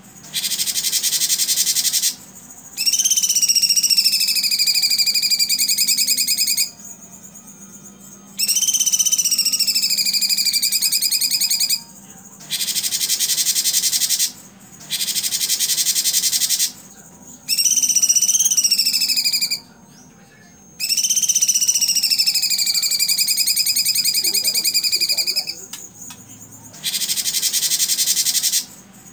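Cucak cungkok singing its rapid 'tembakan' song: bursts of dense, fast, buzzy rattling trills alternating with long whistled notes that rise and then slowly sag, several times over, with short gaps between phrases.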